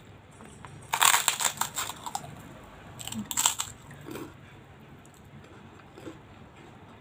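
Biting into and chewing a large crisp kerupuk cracker: two bouts of loud crunching, about a second in and again about three seconds in, then a few faint crackles.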